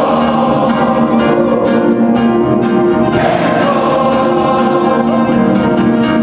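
Gospel choir singing together, holding sustained chords.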